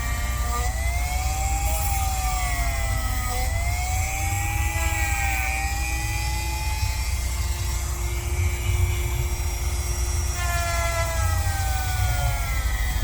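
Handheld rotary tool with a sanding drum, set at a low speed, grinding a dog's toenails. Its whine sags and recovers in pitch several times as the drum is pressed onto the nail and eased off, over a steady low rumble.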